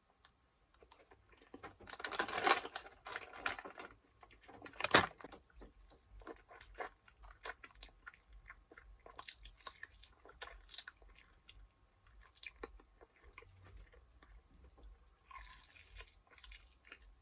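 A person chewing food close to the microphone, with wet mouth clicks and smacks throughout. There is a louder spell of noise about two seconds in and a sharp, loud sound about five seconds in.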